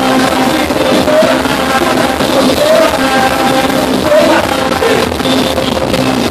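Live chutney band music, loud and amplified: a male singer over keyboard and drums.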